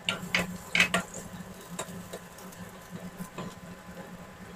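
A spatula tapping and scraping against a nonstick wok while stirring minced garlic in hot oil: a quick run of clicks in the first second, then a few more scattered ones, over a low steady hum.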